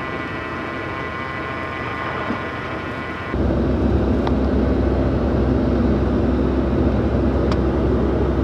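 Pickup truck running as it drives through deep snow on tire chains. About three seconds in the sound changes abruptly to a louder, deeper steady running.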